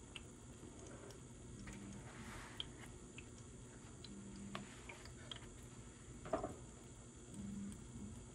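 Quiet handling sounds: a towel rustling faintly and a few light clicks and taps, with a soft knock about six seconds in.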